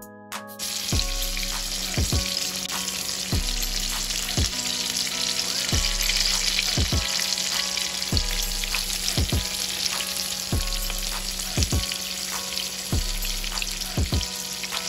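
Salmon fillets coated in fish fry seasoning shallow-frying in hot oil in a pan: a steady sizzle that starts about a second in. Background music with a steady beat plays over it.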